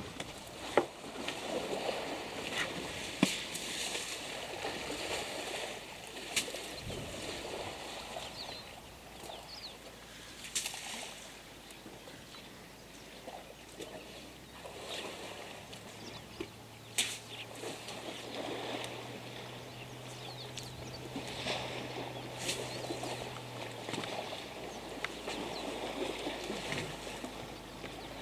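Elephants sloshing and splashing through a shallow muddy waterhole, with scattered sharp splashes or knocks and a few faint bird chirps. A low steady hum comes in about halfway and stops near the end.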